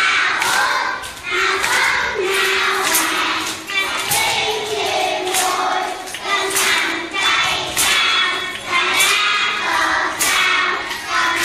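A group of children singing a song together, with a steady beat.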